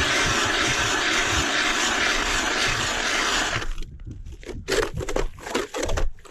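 Manual Strike Master hand ice auger cranked through the ice, its blades shaving ice in a steady grinding crunch that stops abruptly a little over halfway through. Afterwards come a few scattered knocks and clunks.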